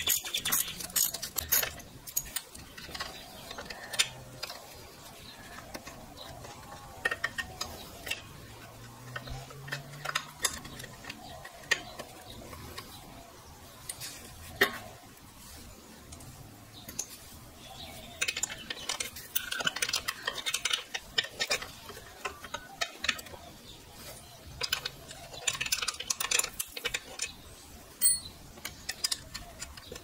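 Allen key and spanner clinking and scraping on a dirt bike's rear brake pedal pivot bolt as the bolt is undone: scattered sharp metallic clicks and taps.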